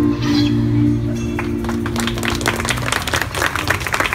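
The final held chord of a song played on acoustic guitar rings on and stops a little past halfway. About two seconds in, an audience breaks into applause that continues to the end.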